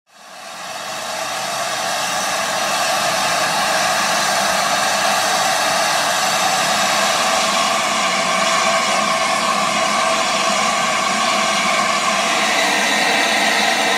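Steady, loud hiss of steam from the stationary LNER Class A4 steam locomotive 60009, fading in at the start and holding level.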